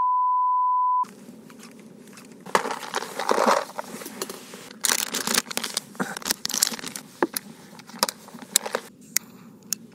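A censor bleep: a steady high beep about a second long over the swear word. Then plastic clicking, rattling and rustling as small plastic lure boxes are handled and opened over a tackle box.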